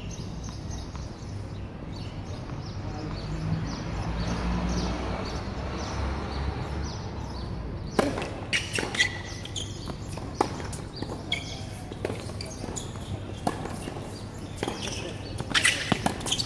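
Tennis serve struck about halfway through, then a rally: racket hits on the ball and its bounces on the hard court as sharp separate cracks, several in quick succession near the end. Before the serve only steady outdoor background noise with a low rumble.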